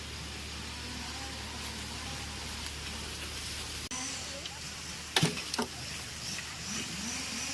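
Faint distant voices over a steady background hum that cuts out about four seconds in, with two sharp knocks a moment later.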